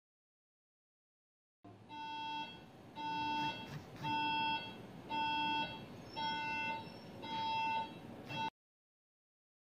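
Electronic beeping from medical equipment: a pitched beep about half a second long, repeating about once a second, six times, then cutting off suddenly.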